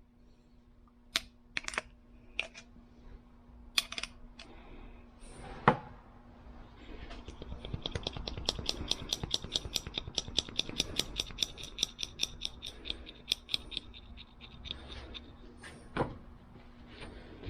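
Light metallic clicks from handling a pair of restored steel side cutters: a few separate clicks, then a fast, even run of clicks at about five a second for several seconds, with a faint steady hum underneath.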